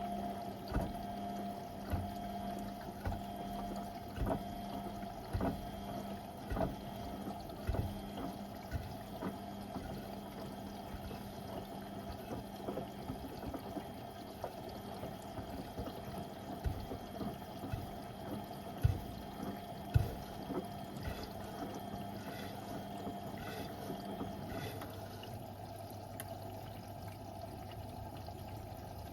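Beko WM74135 washing machine at work with a load of door mats: water pouring into the drum over a steady hum, with soft thumps every second or two. About 25 seconds in, the steady hum changes to a lower one.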